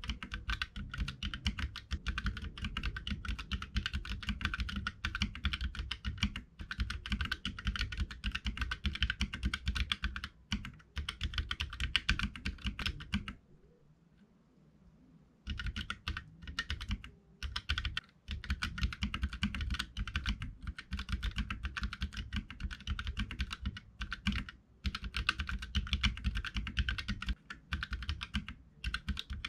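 Fast, continuous typing on a Keychron K3 mechanical keyboard with red Gateron switches, the keys clacking in quick runs. The typing stops for about two seconds around the middle, then carries on.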